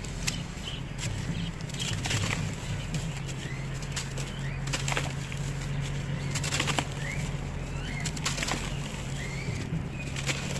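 Hands crushing and crumbling dry cement lumps in a tub, with scattered gritty crunches. Birds chirp now and then over a steady low hum.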